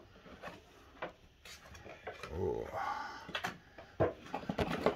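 Scattered clicks and knocks of plastic packaging and toy boxes being handled, with a faint murmuring voice around the middle.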